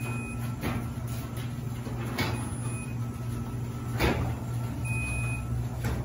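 Chamberlain B970 belt-drive garage door opener running slowly on its 12-volt battery backup, its DC brushless motor giving a steady low hum as the sectional door rises on its tracks, with about four knocks along the way. Short high beeps sound a few times, the opener's signal that it is on battery power.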